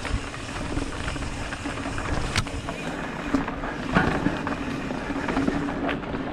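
Mountain bike riding fast along a dirt singletrack: tyres on dirt and leaves with wind rushing over the microphone, and a few sharp knocks from the bike over the bumps.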